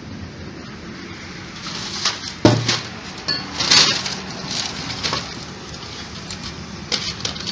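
Metal clinks and knocks as a cast-iron exhaust manifold is handled and set against the cylinder head of a four-cylinder Suzuki Alto engine. The strongest knock, with a dull thud, comes about two and a half seconds in, a run of clinks follows to about five seconds, and a few more come near the end, over a low steady hum.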